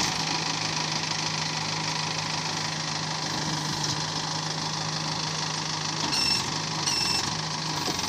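Mahindra EarthMaster SX backhoe loader's diesel engine idling steadily, freshly started, its hum wavering briefly about six seconds in.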